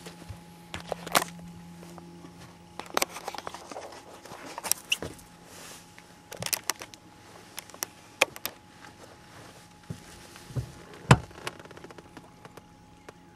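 Footsteps and scattered knocks and clicks on a boat deck as someone moves about the boat, with the sharpest thump about eleven seconds in. A low steady hum runs underneath.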